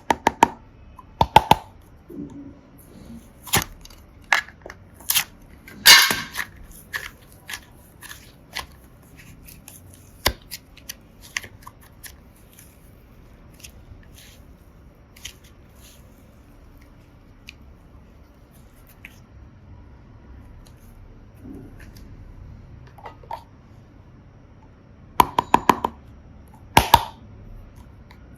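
Hands working slime and small plastic toys: scattered sharp clicks and short crackles. The clicks come in small clusters near the start, around five to six seconds in and near the end, with a long quieter stretch in the middle.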